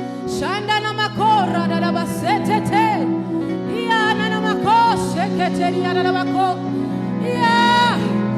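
Slow gospel worship music: a singer's ornamented, wordless line over sustained accompaniment chords, holding a long note near the end.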